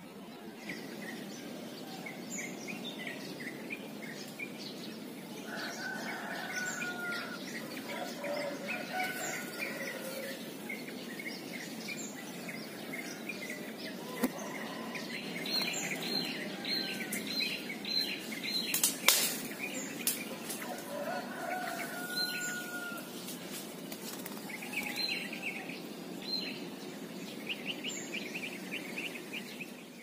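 Sooty-headed bulbuls chirping and calling among the leaves, including a quick run of short high chirps about three a second around the middle. Leaves rustle underneath, and there is one sharp click a little past the middle.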